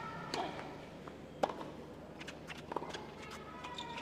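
Tennis ball struck by rackets: a serve about a third of a second in, then sharp rally hits roughly every second and a quarter, the loudest about a second and a half in.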